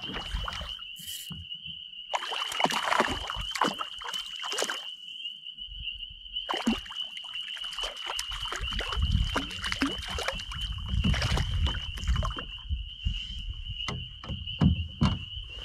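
A small hooked brook trout splashing repeatedly at the water's surface as it is played on a fly line. Behind it runs a steady high-pitched animal chorus.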